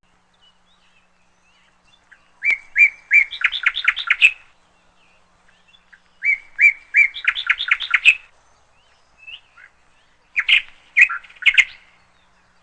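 A songbird singing three phrases, each a few repeated notes followed by a quick run of chirps.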